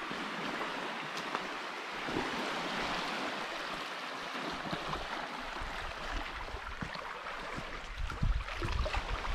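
Steady wash of surf along the shore of a bay. Wind buffets the microphone near the end.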